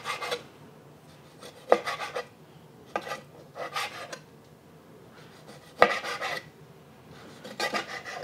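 Chef's knife slicing a whole squid tube into rings on a cutting board: about six separate strokes, each a sharp tap of the blade on the board followed by a short scrape.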